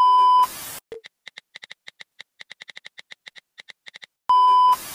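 Editing sound effects: a short, loud bleep tone cut off by a brief burst of static, then a run of quick, irregular light clicks like a text-typing effect, and near the end the same bleep and static burst again.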